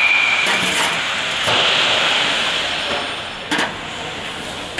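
Indoor ice hockey rink during play: steady noise of skates and play on the ice echoing in the hall, with a sharp knock about three and a half seconds in.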